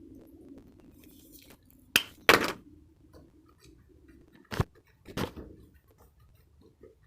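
Slime being squeezed and worked by hand, with sharp wet pops: two close together about two seconds in, and two more a little after four and a half seconds.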